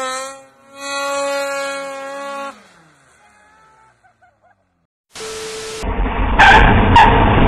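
A snowmobile engine runs at high revs with a steady, even pitch, then cuts off about two and a half seconds in. After a short gap a car engine starts up loud and rough, with tyre noise and two sharp knocks, heard through a security camera's thin audio.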